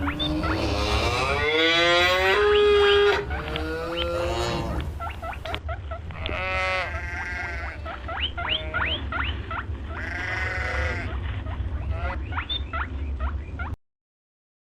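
An animal calling: one long pitched call that rises over the first few seconds, then a string of shorter calls. The sound cuts off abruptly near the end.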